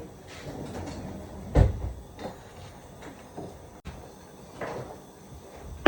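A few knocks and clunks of things being handled in a kitchen, the loudest about a second and a half in.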